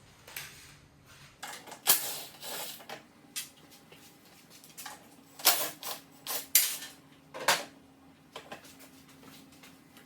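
Socket wrench and metal parts being worked on a scooter's front grill and light bracket bolts: irregular metallic clicks, scrapes and clatter, with several sharper clanks.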